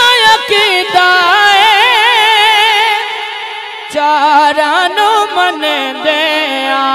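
A male naat reciter singing a Punjabi naat through a PA loudspeaker, in long held notes with wide vibrato and ornamented runs, over a steady held note underneath.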